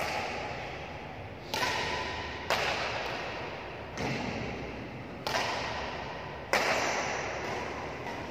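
Badminton rackets striking a shuttlecock in a rally: about six sharp hits roughly a second or so apart, each ringing out in the echo of a large hall.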